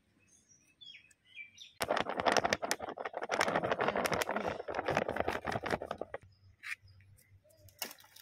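Flour poured from a paper bag into a steel bowl: a dense rustling pour with crackling of the bag, starting about two seconds in and lasting about four seconds. Faint bird chirps before it.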